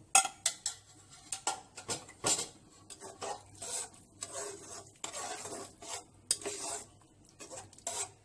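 A spoon stirring boiled split chickpeas into a watery curry in a nonstick pot, with irregular knocks and scrapes of the spoon against the pot, the sharpest just after the start.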